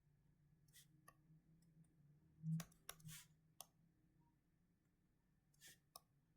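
Faint scattered clicks and short scratchy strokes, about eight in all, over a faint steady low hum.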